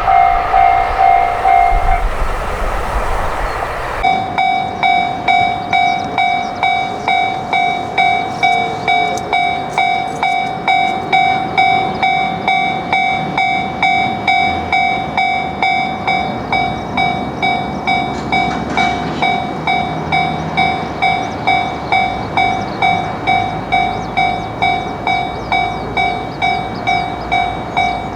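Japanese railway level crossing alarm ringing its steady "kan-kan" clang, about one and a half strikes a second. Early on the bell gives way to a couple of seconds of rushing train noise. Then the sound cuts abruptly to a crossing bell ringing on without a break.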